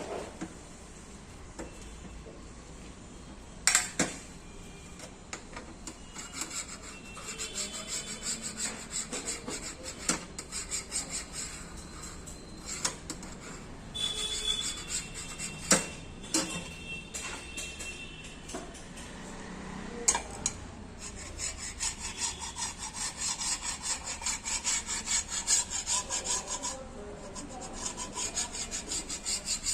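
Repeated back-and-forth hand rubbing on a car's sheet-metal body panel, sanding or filing down the repaired dent, with a few sharp knocks in between. The strokes get quicker and more even in the second half.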